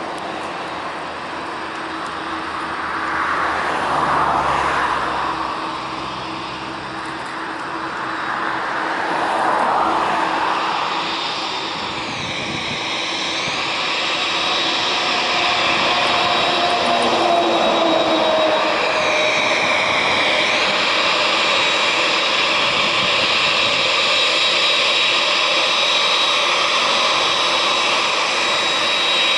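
Twin jet engines of a Boeing 787 taxiing at low thrust: a steady turbine whine over a broad rush. It grows louder about halfway through and stays loud as the airliner comes head-on.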